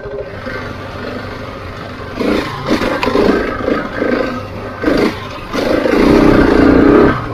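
Husqvarna 701's single-cylinder engine on the move: a steady low run for the first two seconds, then several short surges of throttle and a longer, louder pull near the end.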